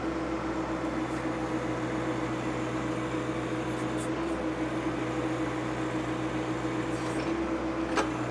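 Compact diesel tractor engine running at a steady speed, with a steady tone over its hum, while the backhoe holds up a heavy stump. One short click about eight seconds in.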